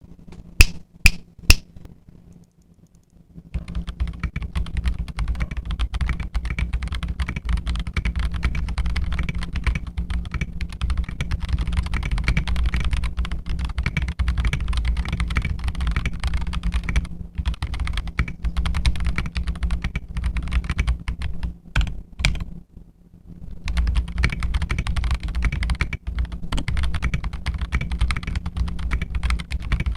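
Fast, continuous typing on a mechanical keyboard with Gazzew Boba U4T tactile switches and SA-profile keycaps, a deep thocky keystroke sound with a hollow echo from the table underneath. It opens with three sharp, loud clicks in the first couple of seconds, and the typing stops briefly about two-thirds of the way through.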